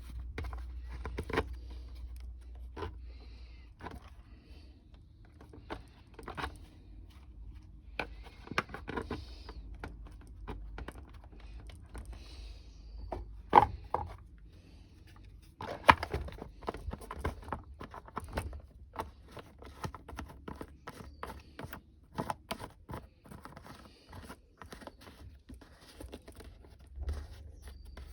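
Irregular clicks, clinks and scrapes of hard parts and tools being handled while a small chainsaw is put back together, with two sharper knocks partway through.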